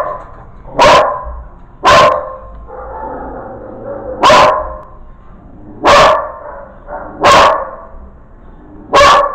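A dog barking in single loud barks, six of them one to two seconds apart.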